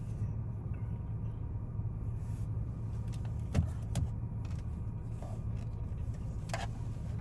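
Car engine idling, heard from inside the cabin as a steady low hum, with a couple of sharp clicks midway.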